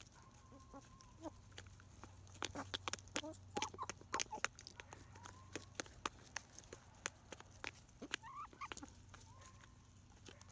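Pullets pecking fast and irregularly at wet gruel in a small plastic container, their beaks clicking against it, with a few drawn-out chicken calls in between.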